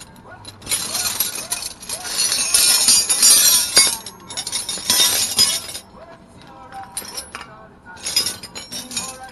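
Metal hand tools clinking and scraping around an air-cooled VW engine in irregular bursts, busiest for the first six seconds and then scattered.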